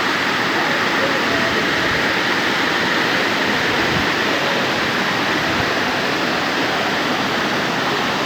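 Waterfall: a steady, loud rush of falling water with no let-up.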